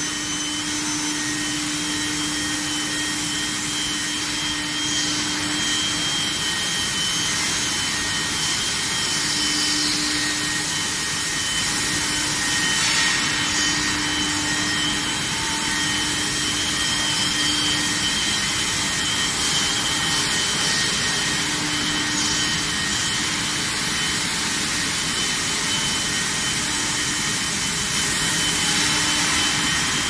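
Steady industrial noise of a running induction heating line for stainless steel bars: a constant hiss with several high, steady whines over it and a low hum that comes and goes.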